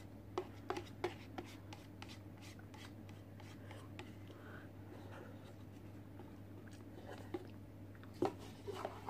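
Chopsticks tapping and scraping against the inside of an instant ramen cup as the last noodles are scooped out. A few sharp taps come in the first second and a half, soft scraping follows, and more taps come near the end, all over a low steady hum.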